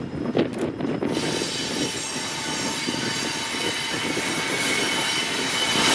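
Train rolling past with a steady rumble and a few wheel clicks over the rail joints. About a second in, a shrill wheel squeal of several steady high tones sets in and keeps going.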